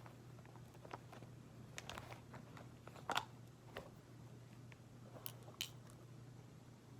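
A few faint, sharp clicks and crackles of handling noise over a steady low hum, the loudest a little past three seconds in and two more near the end.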